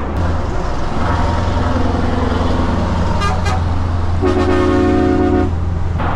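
Lorry air horns blasting several times over the steady low drone of the truck's engine. The longest and loudest blast comes about four seconds in and lasts just over a second.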